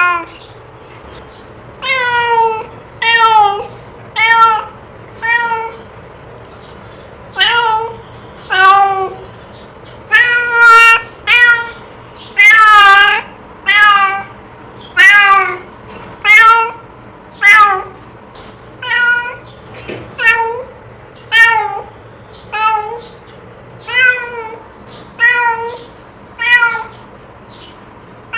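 A cat meowing over and over, one meow about every second or so, many of them falling in pitch at the end.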